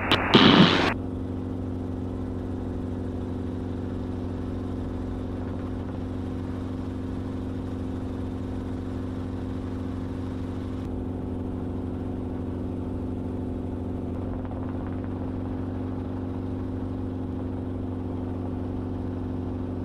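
Enstrom helicopter's engine and rotor in cruise flight, heard from inside the cabin as a steady drone of several even tones.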